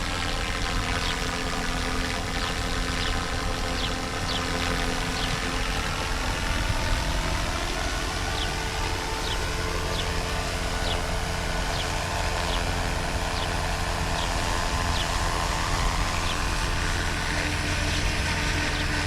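Small helicopter flying low, a steady engine and rotor drone with a slow phasing sweep in its tone as it moves.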